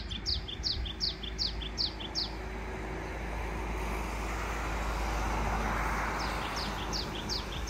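A songbird singing a run of quick, high notes that each slide downward, about three a second, in two bouts: one at the start and one near the end. Beneath it, a steady outdoor rush of noise swells slightly in the middle.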